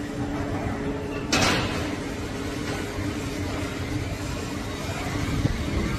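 Construction site noise from a high-rise under construction: machinery running steadily, with one sudden loud bang a little over a second in.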